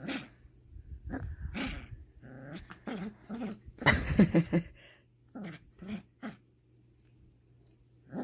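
A puppy growling in short bursts, loudest about four seconds in, then dying away after about five seconds.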